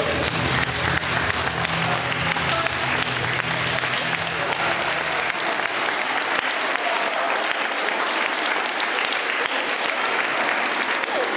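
Audience clapping: a dense, steady applause throughout.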